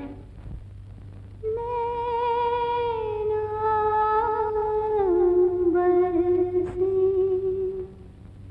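A woman humming a wordless melody in long held notes, starting about a second and a half in and stepping down in pitch, over a faint low drone.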